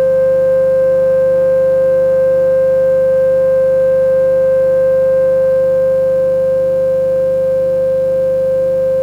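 Modular synthesizer oscillator patched through a Korg Monotron Delay, holding one steady drone: a strong sustained tone with fainter overtones that does not change.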